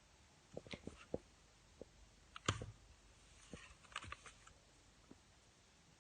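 A scattered run of faint clicks and light taps, the loudest about two and a half seconds in and a quick cluster about a second later, dying away in the last second or so.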